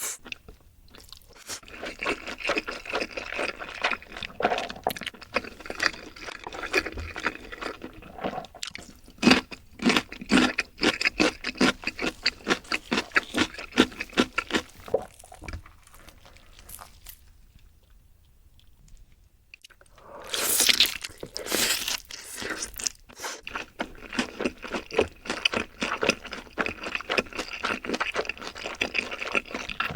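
Close-miked crunching and chewing of crispy fried chicken, a dense run of crackling bites. It goes quieter for a few seconds past the middle, then a louder noisy burst of about two seconds, and the crunching resumes.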